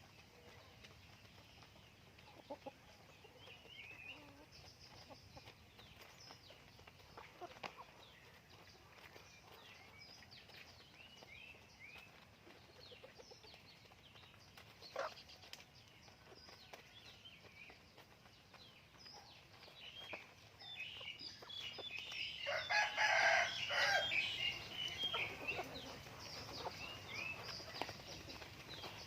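A flock of chickens clucking and chirping in short calls, with a few sharp clicks. About three quarters of the way through, a rooster crows once, loudly, for about two seconds.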